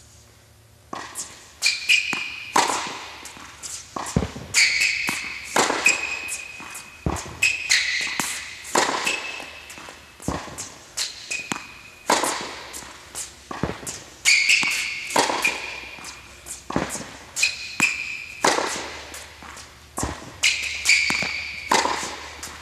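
Tennis ball struck hard with a racket on repeated forehands, a sharp hit every second or two with ball bounces in between, echoing in an indoor tennis hall. Sneakers squeak briefly on the hard court between strokes.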